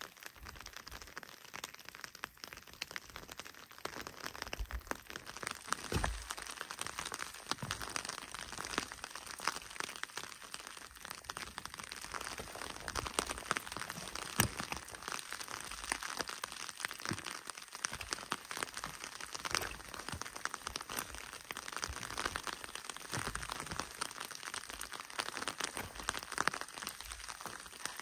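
Footsteps crunching on a loose gravel trail: a continuous crackle of small grinding clicks with soft, irregular low thuds of footfalls.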